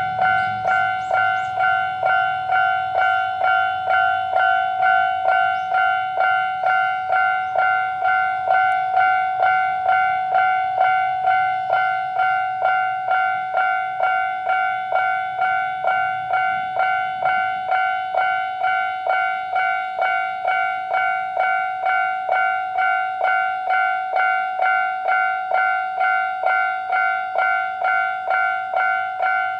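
Japanese level-crossing electronic warning bell sounding its standard alarm tone: a steady, ringing ding repeated about twice a second.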